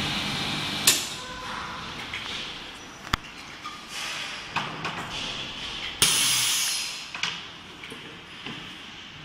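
Chamber vacuum sealer finishing a cycle: the vacuum pump's steady hum stops with a loud clunk about a second in, a few clicks follow while the chamber sits sealed, then about six seconds in air rushes back into the chamber with a hiss that fades over a second, followed by light knocks as the clear lid is lifted.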